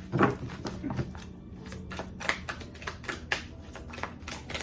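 Tarot cards being shuffled by hand: a run of short, irregular card flicks and slaps, a few a second.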